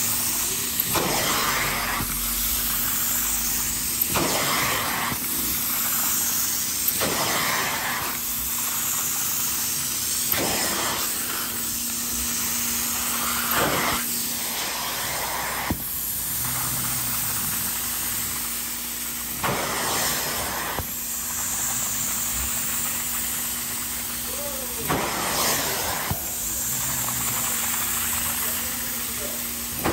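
Hot-water extraction machine's suction hissing through a clear upholstery hand tool drawn across fabric cushions, over a steady machine hum. The hiss swells every few seconds as each stroke is made.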